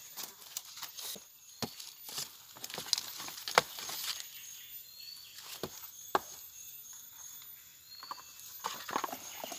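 Scattered irregular clicks, snaps and knocks of movement in forest undergrowth, over a steady high insect drone, with two short rising bird chirps about halfway through and near the end.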